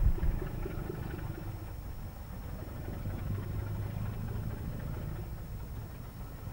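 Distant English Electric Class 50 diesel locomotive running past with its V16 engine giving a steady low drone, easing off from a louder rumble in the first half second.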